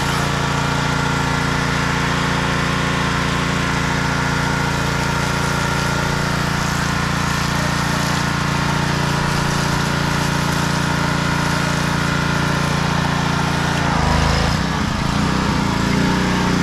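Pressure washer running, its small engine holding a steady note under the hiss of the spray. About fourteen seconds in, the engine note changes and the sound turns rougher.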